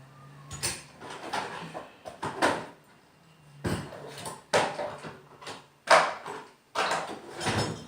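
Hardware and metal parts clinking and clattering as someone rummages through them looking for a bolt: a string of sharp clanks and rattles with short pauses between.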